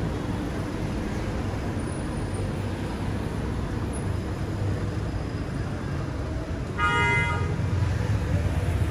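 Steady street traffic rumble, with one short vehicle horn honk about seven seconds in.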